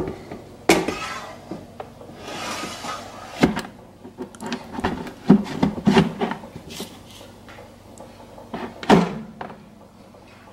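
Power XL air fryer basket being handled and pushed back into the fryer: a run of irregular knocks and clatters with a brief scrape about two seconds in, the loudest knock near the end as the drawer goes home.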